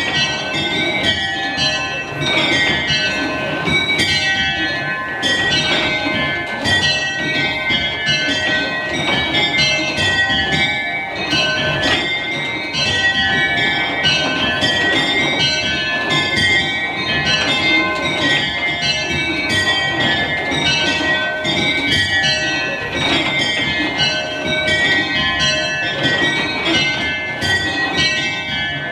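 Change ringing on a mini-ring of very light tower bells (tenor 15 lb 6 oz), six bells rung full circle on ropes and striking in quick, unbroken succession in a method on six bells (Minor).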